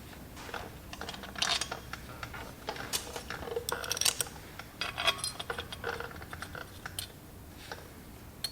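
Irregular light metallic clinks and taps, some with a short ring, as the steel flywheel bolts and lock tabs are handled and set in place on the flywheel.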